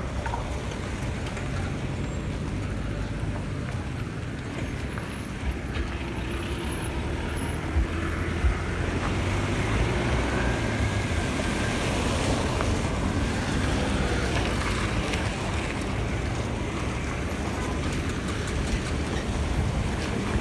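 Road traffic: vehicle engines running and passing as a steady low rumble, with a few short knocks around the middle.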